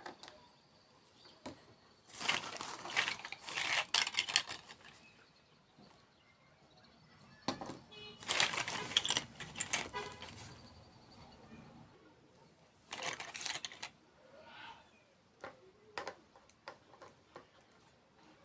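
Close-up ASMR eating sounds: three bursts of crisp, crackly crunching as desserts are bitten and chewed, with scattered small clicks between.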